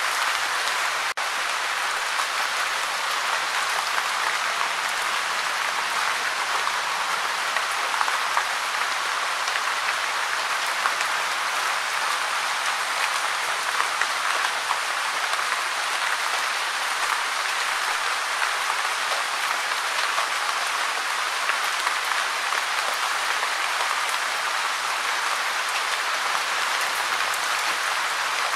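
Gentle, steady rain falling, an even patter of many small drops with no change in strength.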